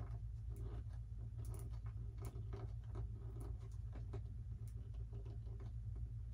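Scattered small clicks and pops as a hand screwdriver turns a coarse-thread Phillips screw into the foam tail of a Dynam Tiger Moth RC model, the screw biting and drawing the tail piece in. A steady low hum runs underneath.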